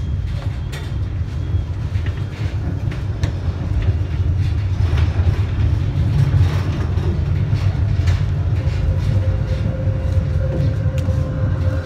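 City tram running, heard from its rear cabin: a loud low rumble with scattered sharp clicks of the wheels over the rails and track joints. A steady whine comes in about three-quarters through.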